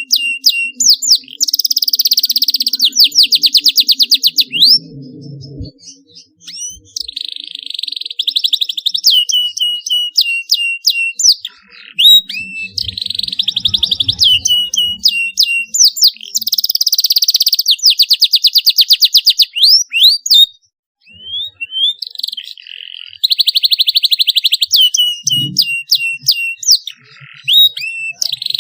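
Domestic canary singing: bursts of very fast, high trills alternating with strings of short sweeping 'cuit' chirps, in repeated phrases with short pauses between them.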